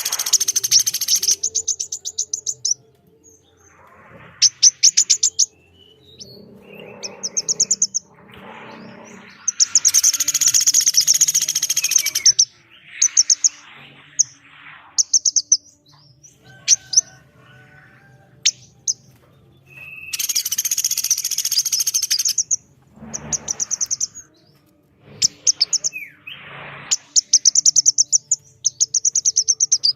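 Birds calling in turn: the pelatuk beras woodpecker and the female korlap. Their calls come as loud bursts of very rapid, high, rattling notes a second or two long, with quieter, rougher calls between the bursts.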